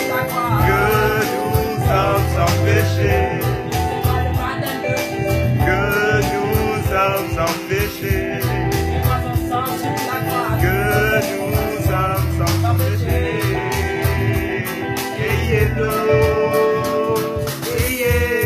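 Reggae band music with a pulsing bass line and steady drum beat, with a melody line wavering above.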